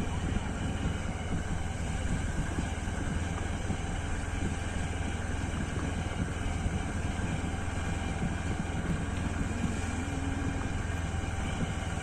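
Motorcycle running steadily while being ridden, with wind and road noise over the microphone.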